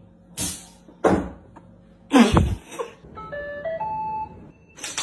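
A robot vacuum playing its electronic chime, a short tune of beeps stepping up and down in pitch, starting about three seconds in. Before it come three short thumps, the loudest about two seconds in.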